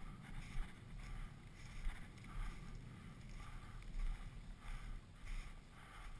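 Footsteps crunching through snow and dry grass stalks at a walking pace, about two steps a second, with wind rumbling on the microphone.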